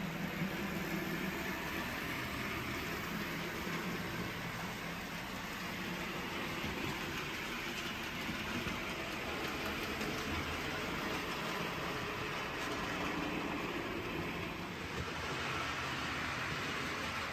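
OO gauge model diesel locomotive running on the layout track, a steady engine-like sound with continuous running noise.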